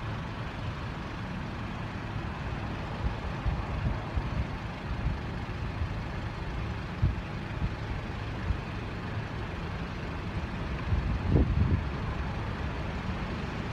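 Steady low rumble of vehicles and street traffic, with a brief pitched sound about 11 seconds in.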